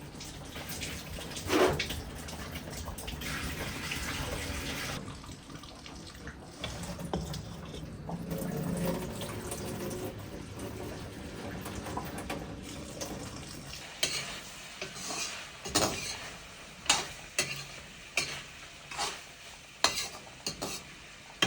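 Cooking in a kitchen: metal utensils clinking and scraping against pots as food is stirred, with a quicker run of sharp clinks over the last several seconds.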